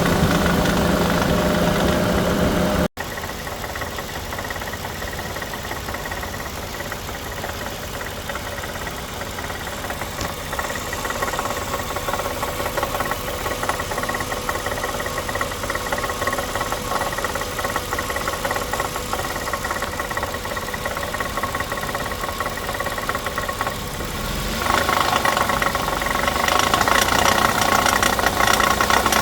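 Dodge Intrepid 2.7-litre V6 idling, with a knocking rattle from the exhaust: the catalytic converter's core has broken up and is loose inside its shell. The sound cuts out briefly about three seconds in and comes back quieter, then grows louder again near the end.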